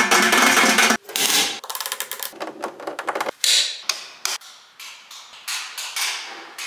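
Fingertips and nails tapping and scratching on a round stainless-steel toilet paper dispenser, then a series of sharp clicks from wall rocker light switches being pressed, from about three and a half seconds in.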